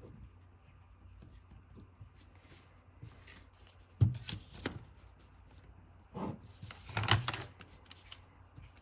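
Plastic ruler and pen handled on paper on a desk: a sharp clack about four seconds in, then a short run of clicks and scratches a couple of seconds later.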